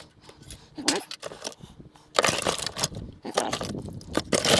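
Small pieces of scrap metal clinking and rattling against each other, quieter at first and then a busy run of clatter from about two seconds in.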